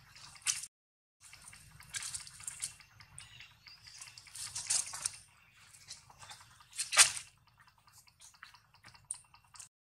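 Long-tailed macaques scuffling and handling a newborn at close range: scattered soft wet clicks and rustling, with one sharp, louder click about seven seconds in.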